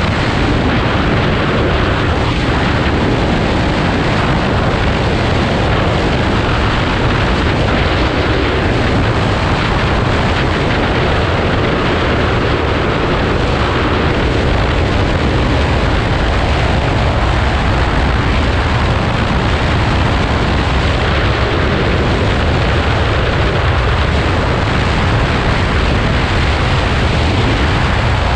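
Heavy wind rushing over the microphone of a Kawasaki Z250 ridden at about 120 to 140 km/h, with its parallel-twin engine running at high revs under the wind as the speed builds. The rush is loud and unbroken.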